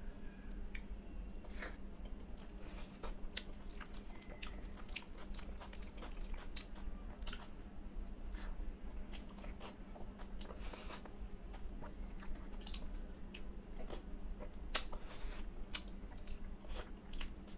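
A man chewing mouthfuls of rice mixed with mashed okra (bhindi bharta), with frequent short wet mouth clicks and smacks.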